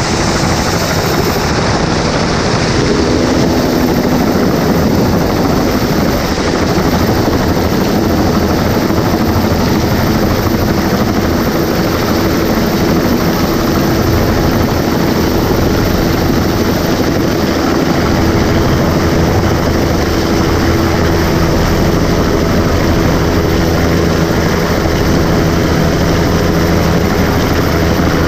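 Helicopter's rotor and engine running loudly and steadily as it comes in to land on a wheeled ground-handling dolly, with a steady low beat under a broad rushing noise.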